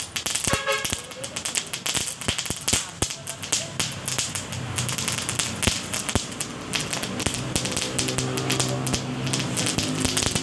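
Burning fuse at the end of a long firecracker string, crackling with a dense run of small sharp pops and ticks. A low droning hum comes in about halfway through.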